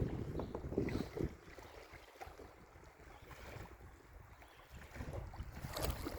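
Wind gusting on the microphone as low, uneven rumbles, strong in the first second, dying down, then rising again near the end, over the faint rush of the Chestatee River.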